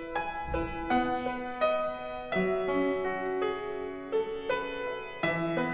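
Piano playing a slow, gentle instrumental prelude: a run of single notes and chords, each struck cleanly and left to ring.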